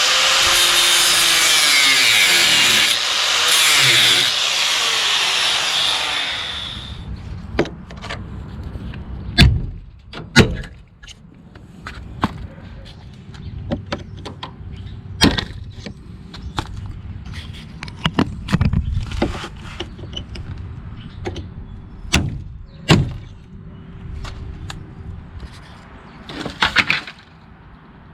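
A power tool runs loudly for about six seconds, its pitch sagging and rising as it works, then stops. After that come scattered knocks, taps and clicks of hand work with tools and parts.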